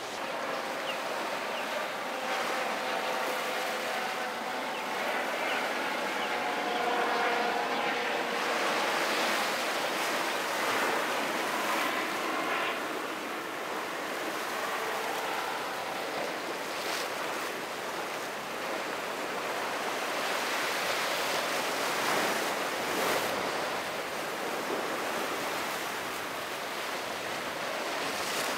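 Ocean surf breaking and wind buffeting the microphone in a steady rushing hiss, with the faint hum of boat motors through the first half.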